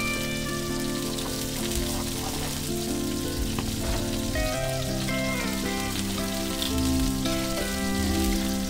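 Background music with sustained, changing chords over the steady sizzle of burger patties frying on a flat-top griddle.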